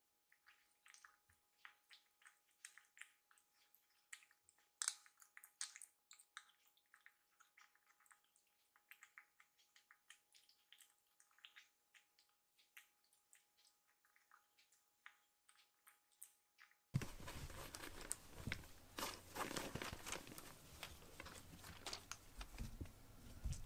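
Kittens crunching dry kibble from ceramic bowls: a quiet, irregular run of small crunches and clicks. About seventeen seconds in this gives way to louder, steadier rustling and scuffing.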